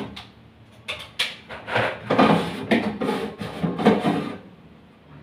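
Scuffing and knocking while the inside of a refrigerator is cleaned, in several short bursts.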